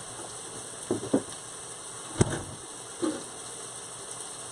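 Onions and peppers sizzling steadily in a pan on an induction cooktop, with a couple of soft kitchen knocks about a second in and a sharp click a little past two seconds.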